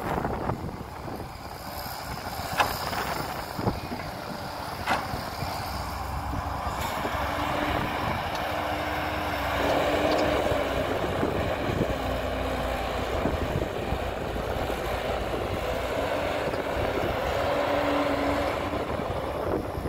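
Heavy diesel earthmoving machinery running as it works, its engine note shifting and swelling. Three sharp knocks come in the first five seconds.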